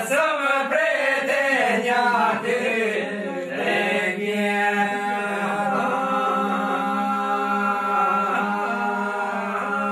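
Men singing northern Albanian two-part polyphony. A lead voice sings a wavering, ornamented melody over a steady drone held by the other men; the line grows calmer and more sustained after about four seconds.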